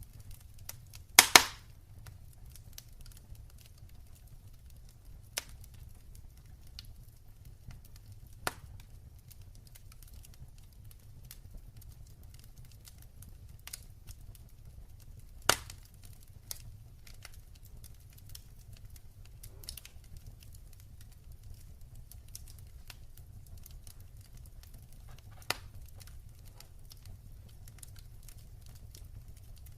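Wood fire in a fireplace crackling: faint scattered ticks over a low steady rumble, with a few sharp pops. The loudest is a double pop about a second in, and single pops come about five, eight, fifteen and twenty-five seconds in.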